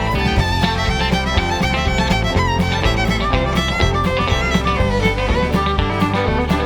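Instrumental band music: a fiddle plays a busy melody over a bass line and a steady beat.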